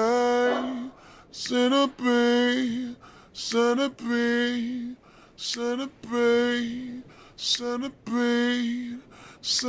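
Slowed-down, reverb-drenched song intro: a sung vocal note held about a second and repeated roughly every two seconds, each one led by a short breathy burst, with no beat underneath.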